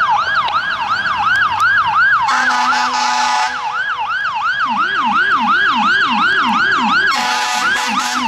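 Fire engine siren on fast yelp, sweeping up and down about three times a second, with two long horn blasts over it, the second starting near the end. A second, lower yelping siren joins about halfway through.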